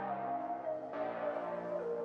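Background music: slow sustained chords, a new chord about once a second, the top note stepping down.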